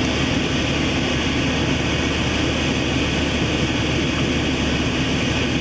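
Steady engine and tyre noise heard from inside an SUV's cabin, driving through a snowy road: a constant low hum under an even rushing noise.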